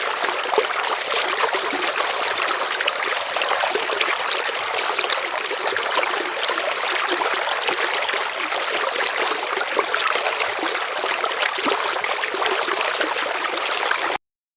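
Running river water, a steady rushing sound that cuts off abruptly near the end.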